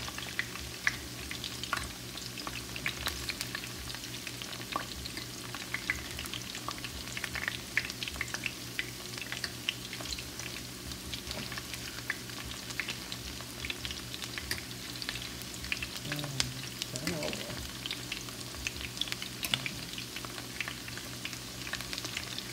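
Batter-coated cauliflower florets frying in hot olive oil in a pan: a steady sizzle thick with small crackles and pops.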